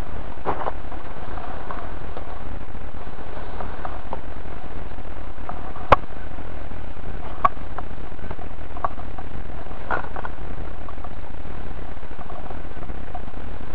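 Wind buffeting the microphone on a sailboat under way in a stiff breeze, a steady rush with a low rumble, broken by scattered clicks and knocks, the sharpest about six seconds in and another about a second and a half later.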